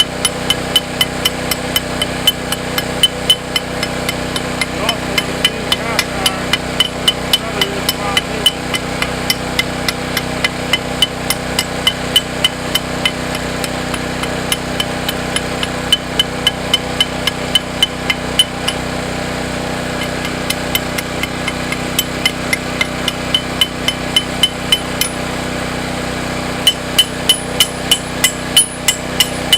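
A hammer tapping on metal in a steady rhythm of about two blows a second, stopping for several seconds past the middle, over a steady electrical hum.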